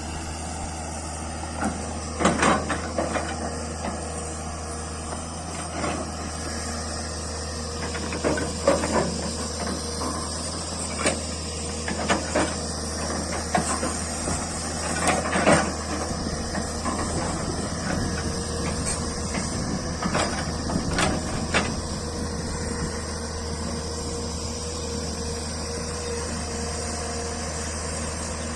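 JCB backhoe loader's diesel engine running steadily, with irregular metallic clanks and knocks every few seconds as the machine works.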